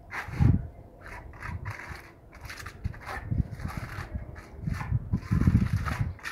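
A plasterer's trowel scraping and spreading cement render across a concrete slab edge in repeated short strokes, with a few louder low rumbles in between.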